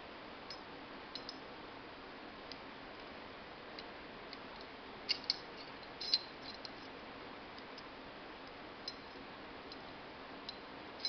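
Light scattered clicks and ticks of small pistol parts, a SCCY CPX2 9mm's recoil spring being worked into the slide by hand, with a few louder clicks about halfway through over a steady faint hiss.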